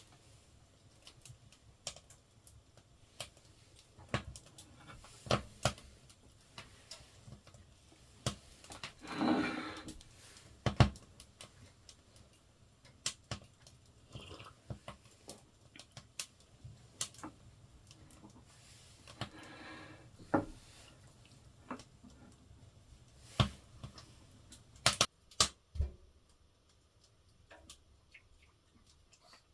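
Firewood burning in a wood stove, crackling with irregular pops and snaps of varying loudness. Twice, about a third and two-thirds of the way through, a soft rushing sound swells for about a second.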